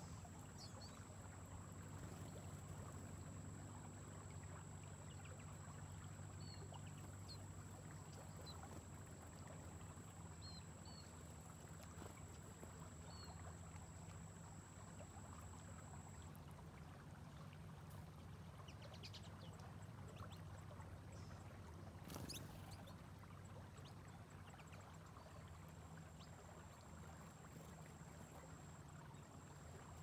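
Quiet riverbank ambience: a faint steady low hum with a few short, faint, high chirps from small birds. A steady high-pitched whine drops out about halfway and returns near the end, and there is a single sharp click about two-thirds of the way through.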